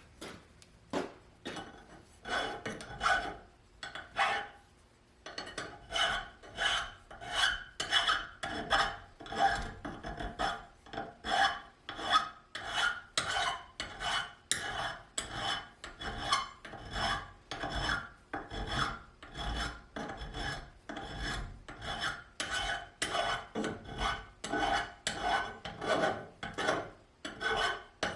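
Steady back-and-forth hand rasping strokes on metal, about one to two a second, each stroke with a ringing tone.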